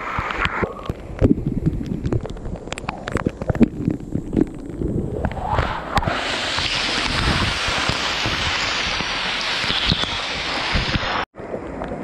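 Water from a small waterfall falling onto and around a close-held camera's microphone: irregular splashes and knocks at first, then from about six seconds in a steady, dense rush of falling water. The sound cuts out for a split second near the end.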